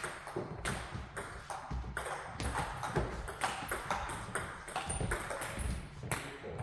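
Table tennis rally: the ball clicks sharply off the bats and the table, about three hits a second.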